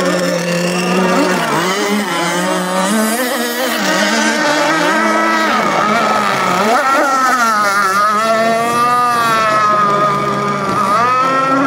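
A radio-controlled model racing boat's engine running at high revs across the water. Its pitch rises and falls again and again as the boat accelerates and turns.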